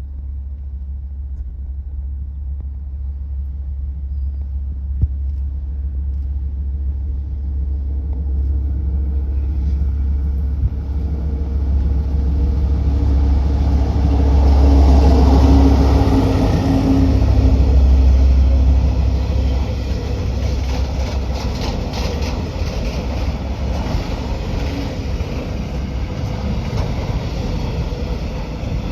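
DL-class diesel-electric locomotive with an MTU V20 diesel engine, running as it approaches and passes, its rumble building to loudest about halfway through. Then it eases into the steady rolling noise of the train going by, with wheel clatter on the rails.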